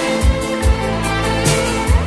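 Instrumental passage of a 1980s pop ballad: sustained instrument notes over a steady beat, with no singing.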